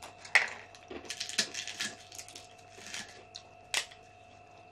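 Close-miked eating sounds: crunching and sharp clicks of food being chewed and handled, with a loud click about a third of a second in and another near four seconds.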